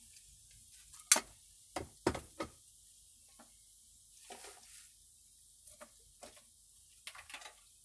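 Sharp knocks and clicks of a plastic scoop and containers being handled, the loudest about a second in and three more close together about two seconds in, then a brief soft rustle and a few faint clicks.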